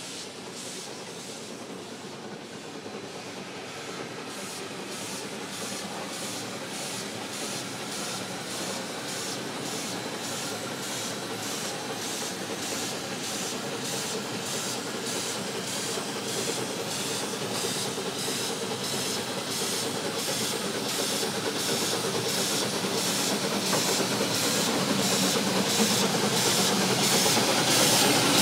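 Geared 3 ft narrow-gauge steam locomotive working, with about two exhaust chuffs a second over hissing steam. It grows steadily louder as it approaches.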